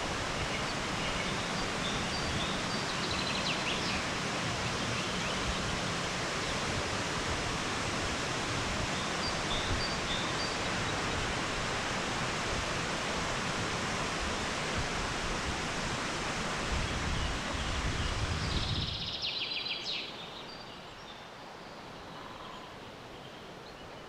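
Steady rush of running water, with a few faint high chirps. About nineteen seconds in the rush drops abruptly to a much quieter hiss.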